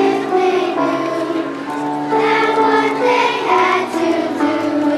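A children's choir singing together, holding sustained notes that change pitch through a melody.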